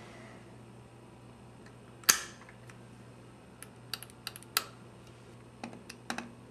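A sharp metallic click about two seconds in as the pressure-plate lever of a Bolex D8L 8mm film camera is flipped open, followed by two groups of lighter clicks and taps as the camera is handled and a screwdriver is set on the screw.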